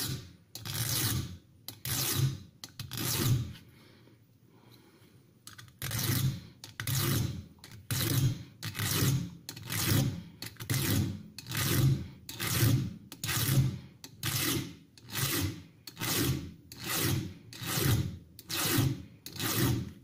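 A 3.5 mm round file rasping back and forth across the heel of a Sandvik 12C27 steel pocket-knife blade, cutting a sharpening choil. The strokes come about one and a half per second, with a pause of about two seconds near four seconds in. The file bites steadily, which the sharpener reads as a blade hardened to a moderate 56–57 HRC.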